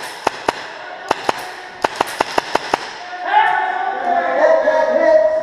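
Tippmann M4 airsoft rifle firing sharp single shots: two, then two more, then a quick string of about six. Raised voices follow from about three seconds in.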